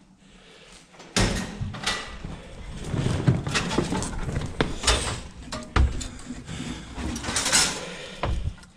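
Irregular knocks, clatters and scuffs of someone climbing down onto a heap of plastic crates and loose wire fencing, starting about a second in.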